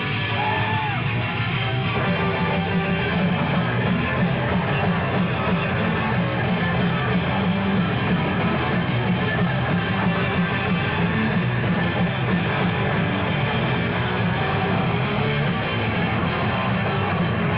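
Hardcore punk rock music with electric guitar, playing steadily.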